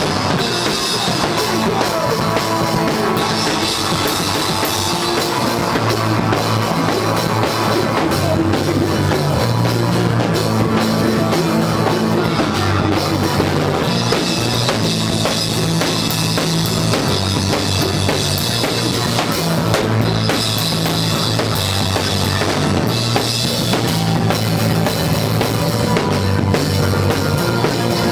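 Rock band playing live and loud: a drum kit with bass lines moving under it.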